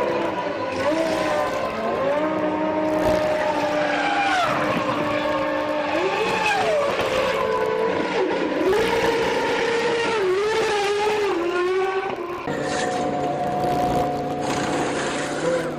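Formula One 3-litre V10 engines running, their pitch stepping up and down as the revs rise and fall. Near the end the pitch settles and holds steady.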